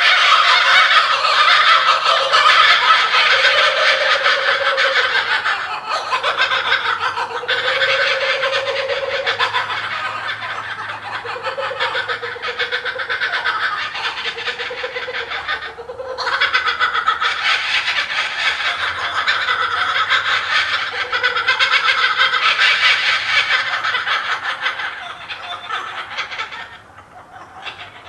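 Laughing kookaburras giving their rapid, cackling laugh calls in long bouts, with short breaks, fading away near the end.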